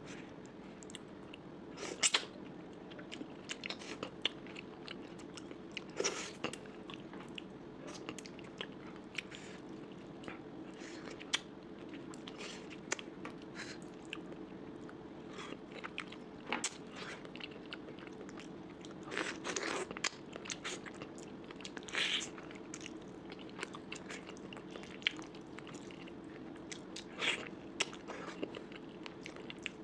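A person eating curry and rice close to the microphone: irregular chewing, biting and crunching with wet mouth clicks, a few louder crunches along the way, over a steady low hum.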